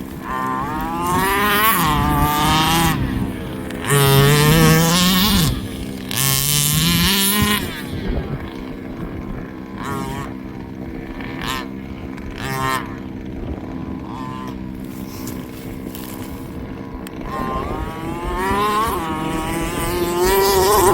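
Large-scale RC car two-stroke petrol engines revving hard in three rising whines in the first half, then running more steadily, with a few sharp knocks around the middle and another rising rev near the end.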